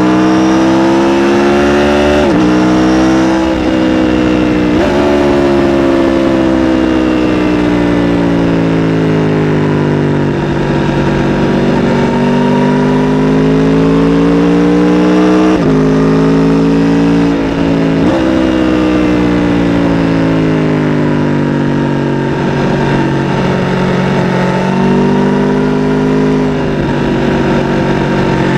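2017 Aprilia RSV4 RR's V4 engine through its stock exhaust, pulling up through the gears: the pitch climbs and drops sharply at each upshift, three times in quick succession near the start and twice more in the middle, with long falls in pitch as it slows between the pulls.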